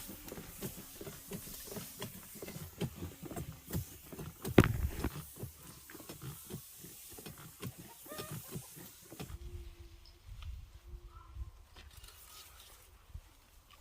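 Rapid, irregular knocking and clattering, with one loud thump about four and a half seconds in. It turns quieter after about nine seconds, leaving a few short animal calls.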